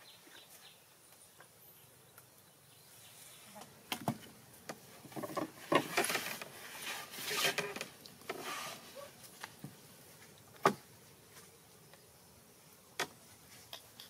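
A whole raw chicken being handled on a wooden board: scattered knocks and soft rubbing and rustling, busiest in the middle, with a sharp knock about two-thirds of the way in and another near the end.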